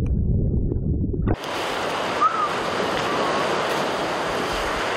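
Muffled underwater rumble that cuts off about a second in to waves lapping at the sea surface. Into this comes a short, high, rise-and-fall whistle, then a fainter one about a second later: a haenyeo's sumbisori, the whistling breath a Korean woman diver pushes out as she surfaces after a minutes-long breath-hold dive.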